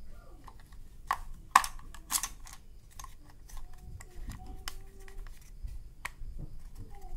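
Plastic clicks and taps of AA batteries being fitted into a pocket radio's battery compartment and its plastic battery cover being handled and closed. There is a run of sharp clicks, the loudest about a second and a half in, followed by lighter ticks and handling noise.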